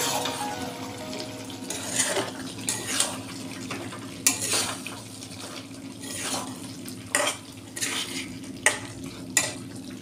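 Flat steel spatula scraping and stirring thick chicken curry around a metal kadai in irregular strokes, roughly one every second. The masala sizzles faintly underneath as it cooks down on low flame until dry.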